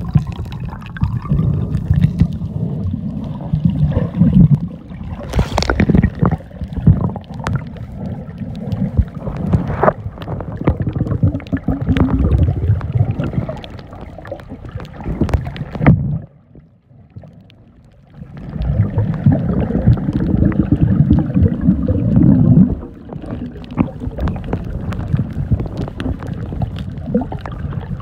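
Sea water sloshing and gurgling against the microphone, with many small knocks and clicks; it drops out briefly about two-thirds of the way through.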